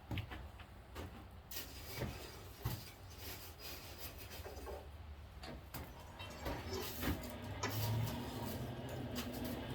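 Coke being raked and shifted in a blacksmith's forge as the workpiece is laid into the fire for a fresh heat: scattered scrapes, crunches and light clinks, with a low hum building near the end.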